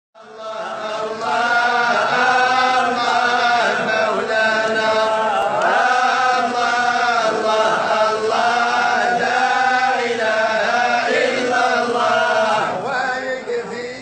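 Chanted vocal music: long held, wavering notes sung without words being picked out, fading in over the first second and then running at a steady level.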